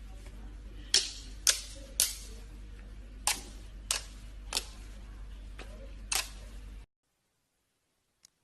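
Slime being pressed and stretched, giving seven sharp pops at uneven intervals over a low steady hum, with the sound cutting out suddenly near the end.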